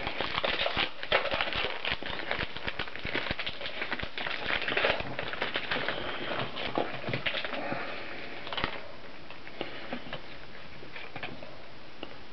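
Trading card packs being torn open and the cards handled: wrapper crinkling and cards rustling and clicking, busy for about eight seconds, then only a few light clicks.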